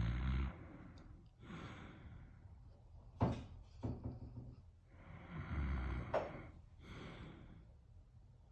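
Snoring: two loud, low snores about five seconds apart, each followed by a softer breath out, with a short sharp noise about three seconds in and another just after six seconds.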